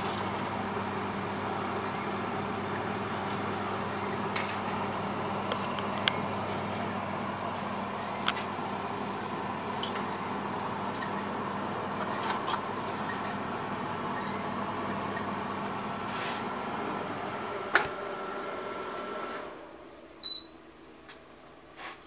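Panasonic NE-1880 commercial microwave oven running with a steady hum, with a few sharp clicks through it. Near the end the hum shuts off as the heating cycle ends, and a single short high beep sounds.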